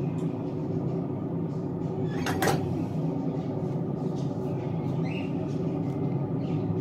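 A Saladmaster stainless steel pot lid clanks once, sharp and brief, as it is set down on the gas stove's grate about two seconds in, over a steady background hum.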